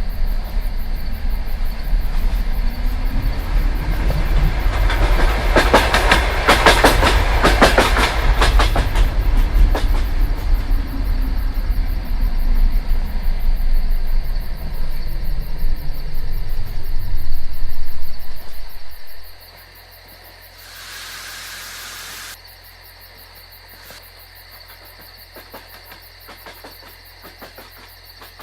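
DR1A diesel multiple unit running, a loud low rumble with wheels clattering over rail joints, heaviest a few seconds in. About 19 seconds in the sound drops sharply, leaving a quiet background with a two-second hiss.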